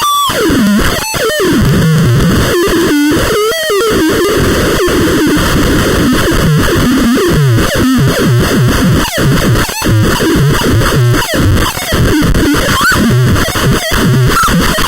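Loud, harsh electronic noise music: dense hiss with distorted tones that glide and wander in pitch.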